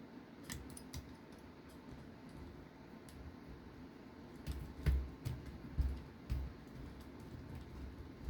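Light clicks and small knocks of a hand driver and small metal parts as a nut is run down onto an M3 screw through flange bearings and shims. The clicks are scattered at first, then come in a busier cluster of clicks and low knocks around the middle.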